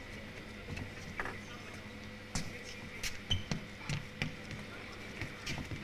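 Table tennis balls bouncing: scattered sharp ticks, a handful at irregular intervals, mostly in the middle, over a faint steady hum of the hall.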